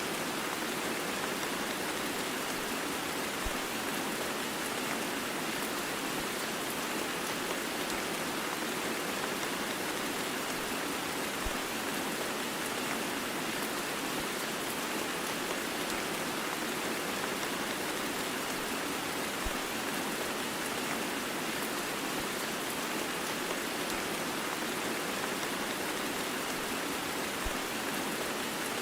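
Heavy rain blended with white noise: a steady, even hiss that never changes, with a faint low tick about every eight seconds.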